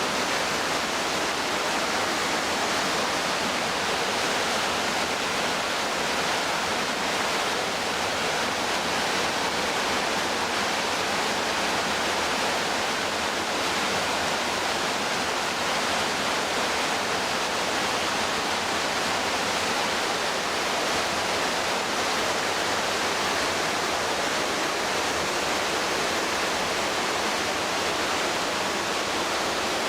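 McKenzie River white water rushing, a steady, unbroken noise.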